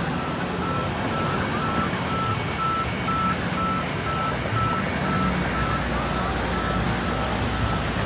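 Horizontal band sawmill running with a steady mechanical noise, a deeper low rumble joining about five seconds in. Over it, a short electronic beep repeats about twice a second, like a reversing or warning alarm.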